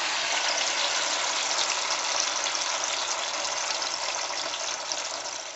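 Ground chili sambal (sambal terasi) sizzling steadily as it is sautéed in hot oil in a pan, fading away near the end.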